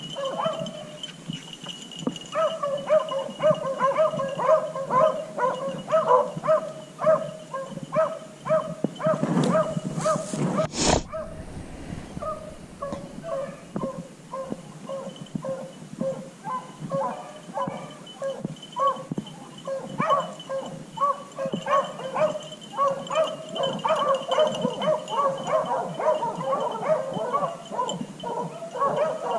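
Beagle hounds baying on a cottontail rabbit that has holed up in a wood pile: a steady run of short barks and bays, one after another with little pause. A brief rustle ends in a sharp knock about eleven seconds in.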